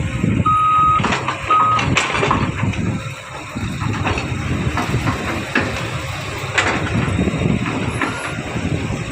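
Isuzu dump truck's engine running with a low rumble, its reversing beeper sounding twice in the first couple of seconds, and a few sharp knocks and clanks through it.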